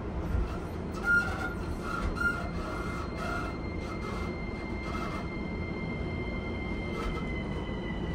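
JR E231-1000 train's original Hitachi IGBT-VVVF inverter heard from inside the car as the train starts off: a thin high whine that slowly falls in pitch, over the low rumble of the car. This falling whine is the sound that earns this unrenewed Hitachi equipment the nickname 'falling inverter'. A few short chirps come in the first half.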